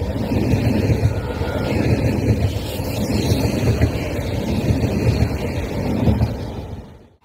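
Frecciarossa high-speed train running past along the platform: a steady rumble of wheels on rail, which fades out near the end.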